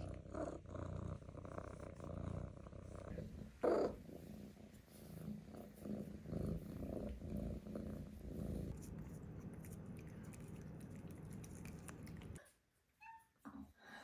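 Maine Coon kitten purring steadily, with one brief louder sound about four seconds in. Near the end the purring stops and a short high chirp is heard.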